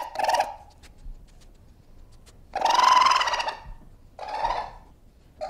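Raccoon calling: a short high call at the start, a longer one of about a second in the middle, and another short one near the end.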